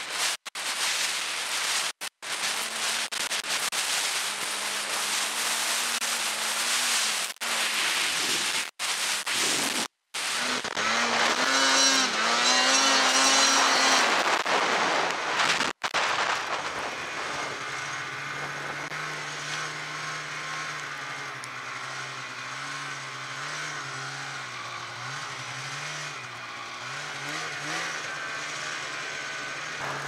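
Snowmobile engine running hard through deep powder, heard from the rider's seat over a loud rush of wind and snow spray, its pitch rising and falling. The sound drops out suddenly for short moments several times in the first half; after about 17 s the engine runs lower and quieter with a wavering tone.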